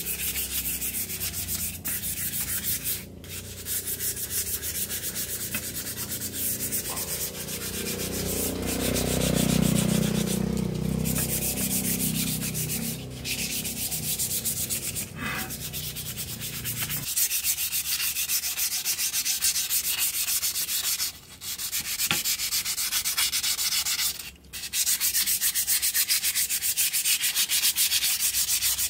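Rust being sanded off a bicycle part: a continuous abrasive rubbing with a few brief pauses. A lower rumble underneath stops abruptly about 17 seconds in.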